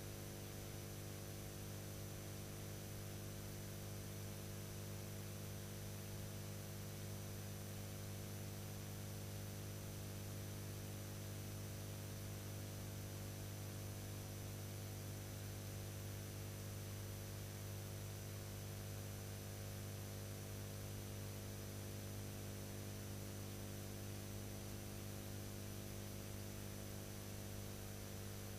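Steady electrical mains hum with a constant hiss and a thin high whine, and nothing else: the empty soundtrack of a silent-film transfer.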